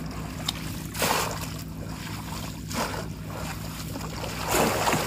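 Bamboo polo basket trap slammed down into shallow floodwater, splashing twice: once about a second in and again near the end.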